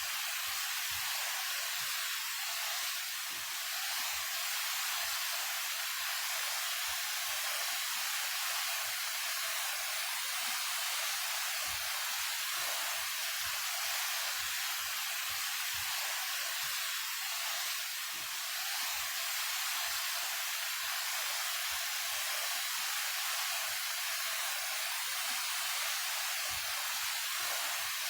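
A 28 m mountain waterfall pouring steadily: an even rush of falling water, bright and hiss-like, with almost no deep rumble.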